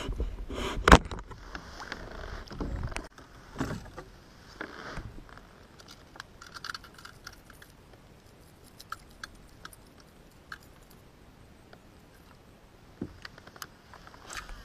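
Knocks and bumps on a kayak's hull with water sloshing over the first few seconds, then quiet with scattered light clicks.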